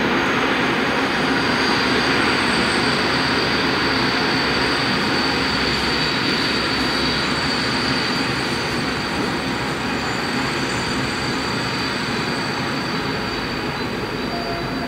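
Freight train of covered hopper wagons rolling slowly past: a steady rumble and rattle of wheels on rail, with a thin high squeal of wheel flanges on the track that stops near the end. The sound slowly fades over the second half.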